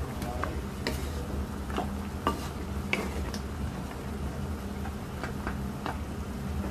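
Wooden spatula stirring mutton pieces in bubbling broth in a non-stick wok, with scattered short knocks and scrapes against the pan over a steady low hum.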